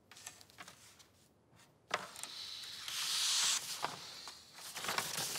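A large sheet of paper rustling and crackling as it is handled and lifted. A few faint clicks come first, then the crackling starts about two seconds in and is loudest around the middle.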